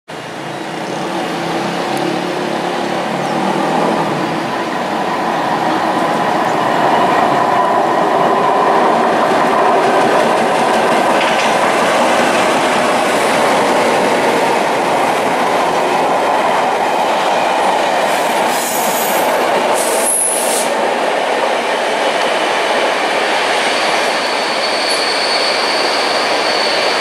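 Network Rail test train, top-and-tailed by two Class 73 electro-diesel locomotives, passing close by with a loud, steady running noise of wheels on the rails. About two-thirds of the way through there is a brief high hiss and a sharp click, and near the end a thin, high, steady whine.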